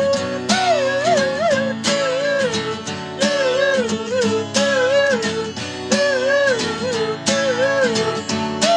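Acoustic guitars strummed in a steady rhythm under a wordless vocal melody that wavers up and down in a repeating phrase.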